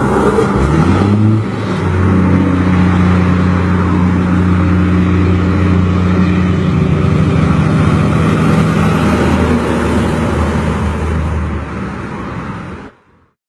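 Truck engine running through a straight-through exhaust pipe ("diretão"): it revs up about half a second in, then holds a loud, steady rumble and dies away abruptly near the end.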